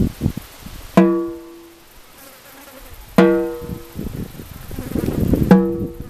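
Shamanic frame drum struck slowly with a beater: three single beats about two seconds apart, each leaving a ringing, humming tone that fades quickly.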